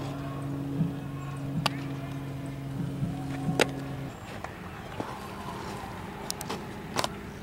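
A steady low motor hum that cuts off about four seconds in, with a few sharp knocks scattered through.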